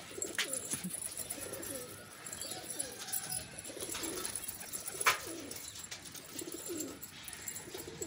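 A flock of domestic pigeons cooing, with two sharp clicks, one near the start and one about five seconds in.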